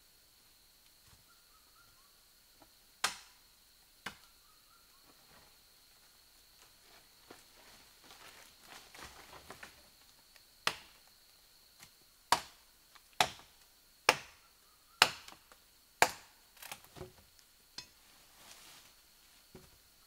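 Sharp chopping knocks: two about three seconds in, then a run of about eight, roughly one a second, in the second half, with rustling through leafy undergrowth between them. A steady high insect drone runs underneath.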